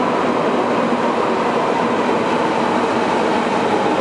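Heavy thunderstorm rain pouring onto a glass roof, a dense, steady rush. A faint whine sinks slowly in pitch through it.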